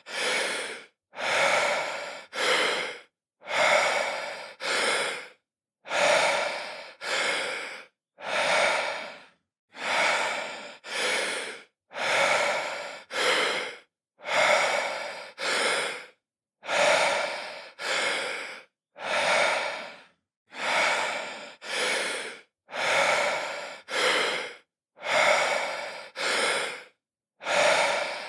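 A man breathing deeply in and out, each inhale and exhale a breathy rush of under a second, mostly in pairs, with short silent gaps between them, in a slow, even rhythm.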